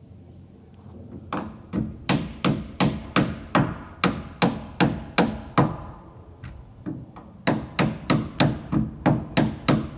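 Nails being driven into the wooden roof framing: about a dozen sharp, evenly spaced strikes, roughly three a second, then a short pause and about seven more.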